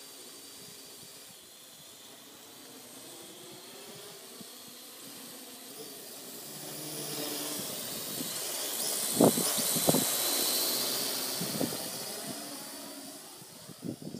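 Parrot AR.Drone quadcopter's electric motors and propellers whining with a steady hiss, growing louder as it passes close about seven to eleven seconds in, then fading. Two sharp thumps sound at the loudest point, about nine and ten seconds in.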